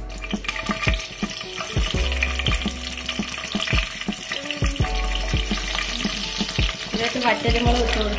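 Mustard seeds and dried red chillies sizzling in hot oil in a frying pan, over background music.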